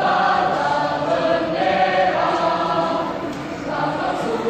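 A mixed youth choir of boys and girls singing together in held notes, with a brief breath between phrases about three and a half seconds in.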